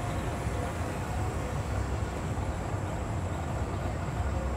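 Steady low rumble of an idling vehicle engine under outdoor background noise, with no sudden sounds.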